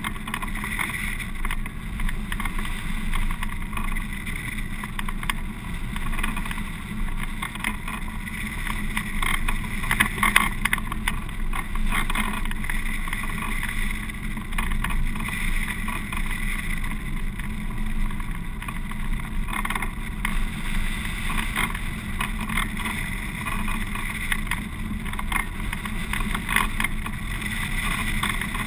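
Steady rush of wind over the camera of a hang glider in flight, a rough airstream that swells and eases a little.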